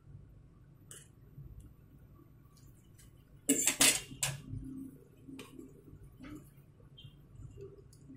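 A spoon knocking and clinking against a cooking pot while stirring noodle soup: a few faint taps, then a loud cluster of three or four sharp knocks about three and a half seconds in, and a couple more light taps after.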